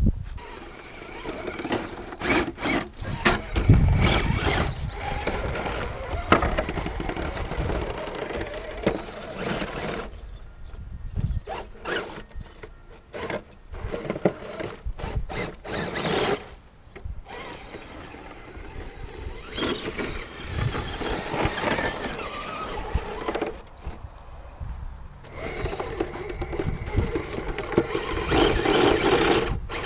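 Axial SCX10 RC crawler truck driving in stop-start bursts: its electric motor and drivetrain gears whine, the pitch rising and falling with the throttle, among knocks and scrapes from the truck moving over the ground. It pauses briefly three times.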